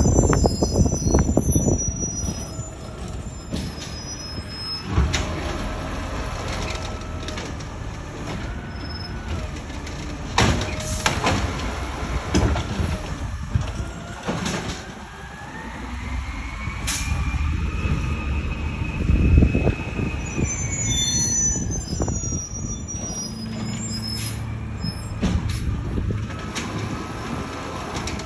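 Natural-gas automated side-loader garbage truck working a recycling pickup: its engine runs with hisses of air brake. Midway, a whine climbs, holds and falls back as the hydraulic lift arm works. Sharp clanks come from the arm and the bin.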